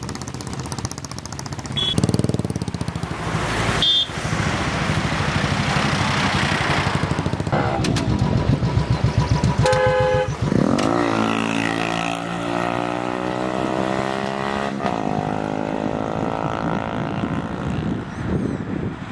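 Royal Enfield Bullet single-cylinder motorcycles running, with a few short horn toots in the first half. About ten seconds in, an engine revs up, its pitch rising and then holding steady.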